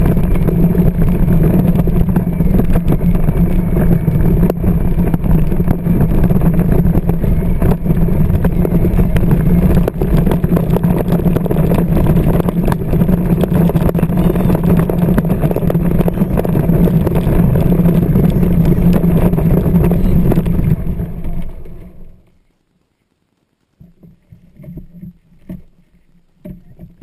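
Battery-powered John Deere Ground Force ride-on toy tractor running, its electric drive motor and gearbox giving a steady hum with wheel-rolling noise. It stops about 22 seconds in, leaving only faint small sounds.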